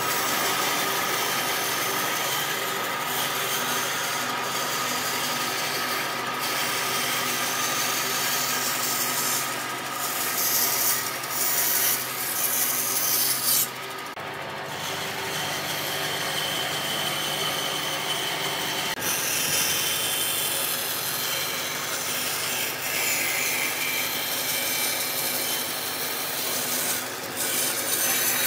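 Electric power tool running against wood: a steady motor hum under a rasping, rubbing noise. There is a brief dip about halfway, after which the motor settles at a slightly higher pitch.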